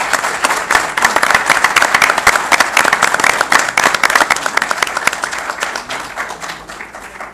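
Audience applauding, a dense patter of many hands clapping that swells up at once, holds for several seconds, then fades away near the end.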